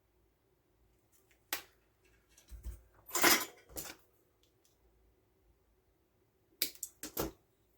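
Clicks and clatter of small hand tools and wire being handled and set down on a workbench during soldering: a single knock about a second and a half in, a cluster of clatter around three seconds, and a quick run of clicks near the end.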